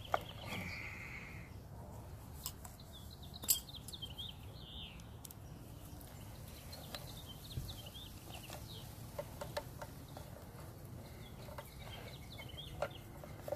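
Birds calling faintly in the background with many short repeated calls. Over them come a few sharp clicks and taps as hands handle the pitching machine's plastic control box, its wires and a screwdriver; the loudest clicks fall about two and a half and three and a half seconds in.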